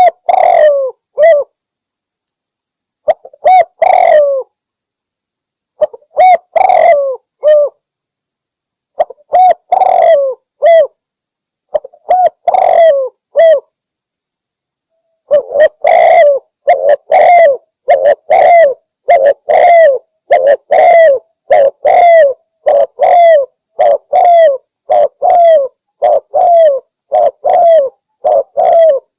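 Spotted dove (derkuku) cooing: short phrases of a few coos separated by silent gaps of a second or two, then from about halfway on an unbroken run of evenly spaced coos, a little under two per second.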